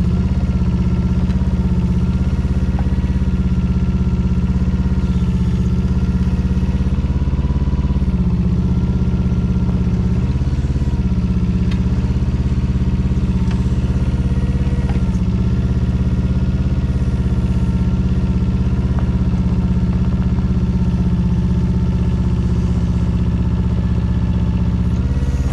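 Small Yanmar diesel engine of a Daewoo Solar 010 mini excavator running steadily. Its note dips and shifts several times as the hydraulic boom and arm are worked.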